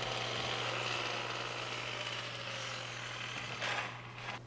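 A 12-volt egg-beater-style electric impact wrench running with no load, a steady whirring buzz. It stops near the end.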